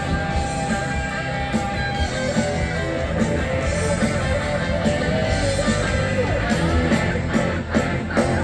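A rock band playing live in a stadium, heard through a phone's microphone from the crowd: electric guitars over drums with a steady beat.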